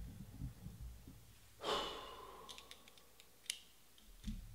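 A person's breathy exhale or sigh about a second and a half in, followed by a few faint clicks and a low thump near the end.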